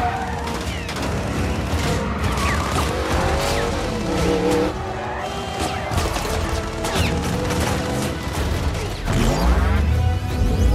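Car-chase film soundtrack: several car engines revving, their pitch rising and falling, mixed with action music. The low engine rumble gets louder about nine seconds in.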